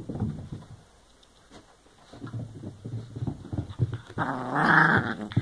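Chihuahua growling with a ball in its mouth: a low, rumbling growl that starts about two seconds in and is loudest near the end.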